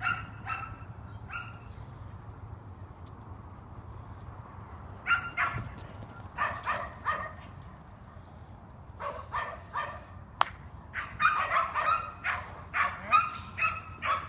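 Track dog barking and yipping in short, quick calls, in scattered clusters that come thickest over the last few seconds. A single sharp click sounds about ten seconds in.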